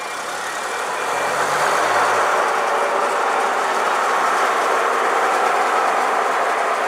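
Ex-Southern Vectis Bristol VR double-decker bus pulling away and driving past, its engine growing louder about a second in and then running steadily.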